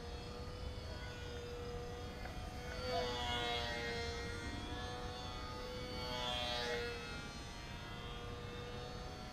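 HobbyZone Sport Cub S RC plane flying at a distance: the thin, steady whine of its small electric motor and propeller, holding one pitch. It swells a little about three seconds in and again about six seconds in as the plane passes.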